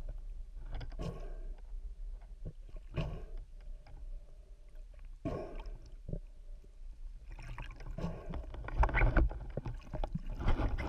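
Muffled underwater water noise picked up by a camera in its housing: irregular swishing and gurgling surges, loudest about eight to nine seconds in and again near the end.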